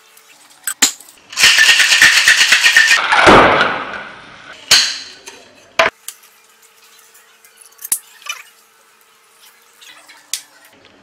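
Ice cubes rattling hard in a metal cocktail shaker for about two seconds, then a few sharp clinks and taps of glassware and bar tools.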